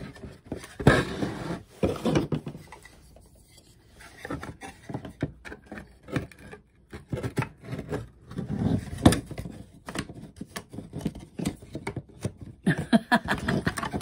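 Bamboo panels of a slot-together tray shelf knocking, clicking and scraping against each other as the tabbed pieces are worked into their slots. The sounds come at irregular intervals, with the loudest knocks about a second in and about nine seconds in.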